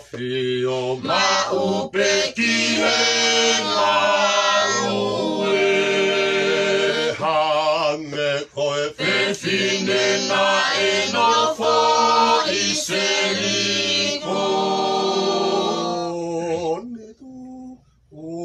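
A small group of men, women and children singing together without instruments, holding long notes; the singing stops near the end.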